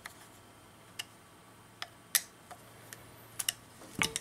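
Scattered light clicks and taps from a small speed-control box and its screwed-on metal mounting bracket being handled, about half a dozen over a few seconds, the loudest a little past two seconds in.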